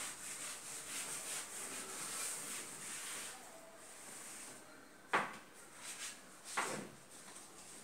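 Whiteboard eraser wiping across a whiteboard in quick, even back-and-forth strokes. After a pause, two sharp knocks about a second and a half apart.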